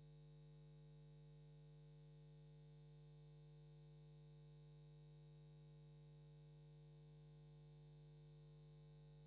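Near silence with a faint, steady, unchanging hum.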